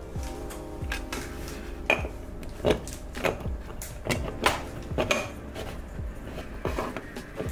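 Irregular light metallic knocks and clicks of an aluminium Bialetti moka pot being handled, as its upper chamber is fitted and screwed onto the coffee-filled base.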